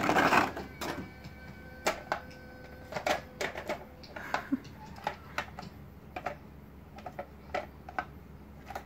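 Egg tray being tapped and batted by a baby's hands: irregular light taps and clatters, a few at a time with short pauses, the loudest cluster right at the start.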